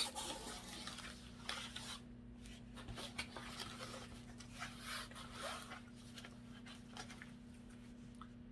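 Faint rustling and rubbing of packaging being handled as a box is opened and its contents taken out, in short scattered scrapes over a steady low hum.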